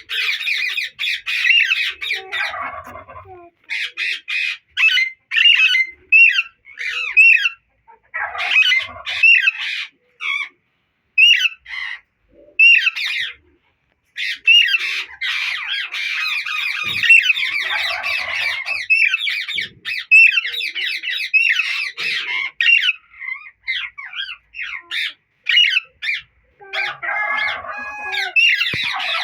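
Alexandrine parakeets squawking: repeated harsh, high calls in runs broken by short pauses, busiest near the start and through the middle.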